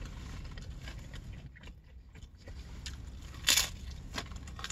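A crunchy bite into a hard-shell taco about three and a half seconds in, followed by a few softer crunches of chewing, over a low steady rumble.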